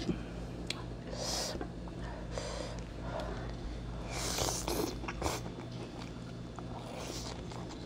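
A person eating pork cutlet with a fork: chewing and breathing, with several short breathy bursts and a couple of light cutlery clicks near the start, over a steady low hum.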